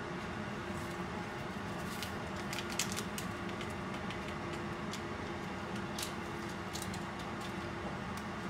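Steady mechanical hum, with a few light crinkling clicks as a paper seasoning packet is handled and shaken over a ceramic bowl.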